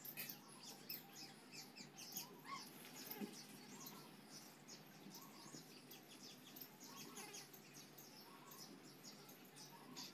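Near silence with faint bird chirps in the background.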